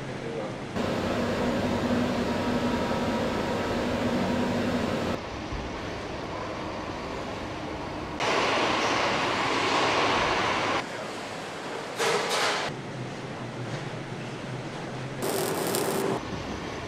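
Industrial machinery and vehicle noise in short clips cut together, the steady din changing abruptly every few seconds.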